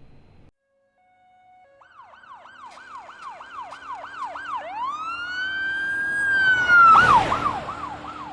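Emergency vehicle siren that starts about two seconds in and grows louder. It goes from a fast yelp, about three sweeps a second, to a long rising wail held for a couple of seconds, then back to the yelp. A loud burst of noise comes about seven seconds in, where it is loudest, and the siren then fades a little.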